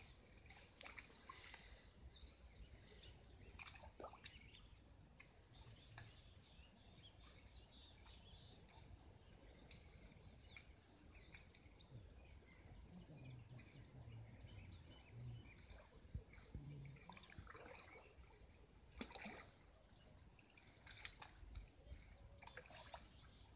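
Faint, scattered splashing and dripping of muddy water as hands and legs move through a shallow, drained pond.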